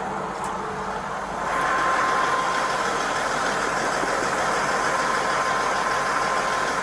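Semi-truck's diesel engine idling: a steady running noise with a faint high whine, stepping up louder and closer about a second and a half in.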